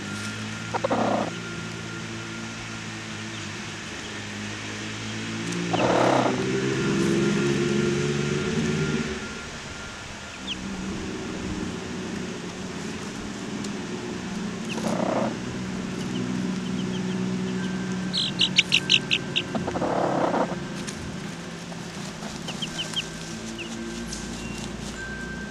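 Dust-bathing hens murmuring with low, drawn-out clucks, with four short rustles as dust is flicked through their feathers. Faint high peeps come now and then, and a quick run of high chirps comes about three-quarters of the way through.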